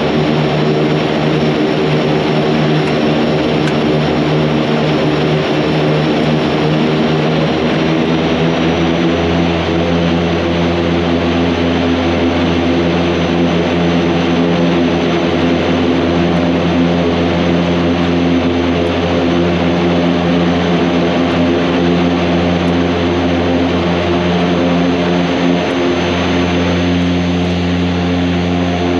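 Antonov An-26's twin Ivchenko AI-24VT turboprop engines running with a loud, steady propeller drone, heard inside the cockpit. The low hum grows stronger about nine seconds in.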